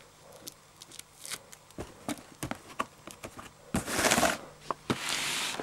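Firework packaging being handled: scattered light taps and knocks, with two longer rustles about four and five seconds in.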